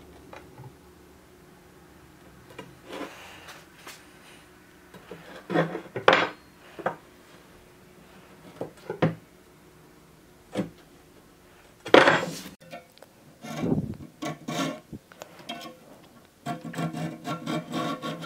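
Steel sword blade being handled on a plywood workbench: scattered knocks and rubs of metal against wood, with a louder clatter about twelve seconds in and a longer scrape just after it.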